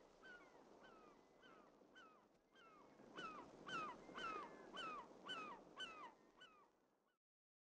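A dog yelping over and over, about two short high cries a second, each dropping and then hooking back up in pitch. The yelps grow louder in the middle, then fade and stop shortly before the end.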